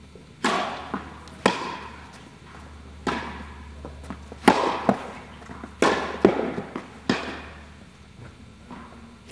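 Tennis rally: a ball struck by rackets and bouncing on the court, about six sharp hits roughly every second and a half with fainter knocks between, each ringing on in the echo of an indoor tennis hall. The hits stop about two seconds before the end.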